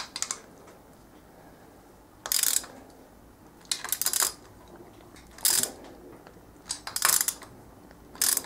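Hand socket ratchet clicking in six short bursts about a second or so apart, as cylinder head bolts are run down and nipped up.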